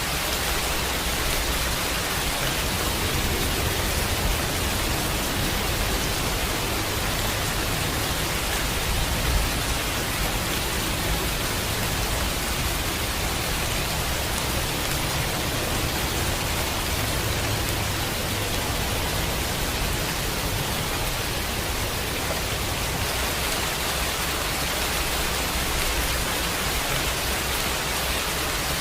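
Steady rain: an even, unbroken hiss with no single drops or other sounds standing out.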